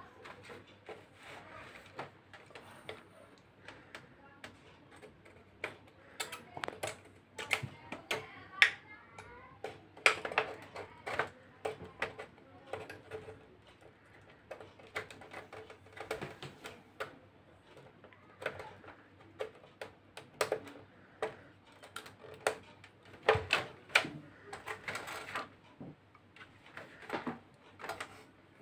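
Irregular clicks, taps and scratches of a metal hand tool working around the edge of a plastic stencil's circle opening, cutting a round hole in LED TV backlight reflector paper.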